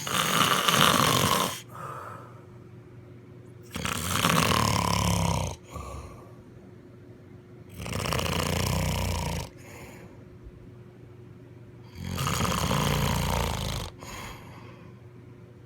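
Loud snoring in a slow, regular rhythm: four long snores, one about every four seconds, with quieter breathing between.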